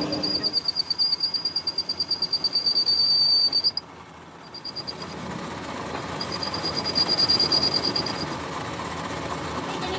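Metal being cut on a lathe: a high-pitched squeal from the tool on the turning workpiece, pulsing several times a second. It stops suddenly about four seconds in and comes back twice more, over the steady running of the machine.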